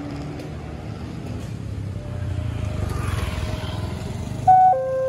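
Road vehicles, motorbikes and cars, running over the railway level crossing, a low engine rumble that swells about three seconds in. Near the end the crossing's electronic warning siren starts, loud alternating steady tones, signalling that the barrier is about to close for an approaching train.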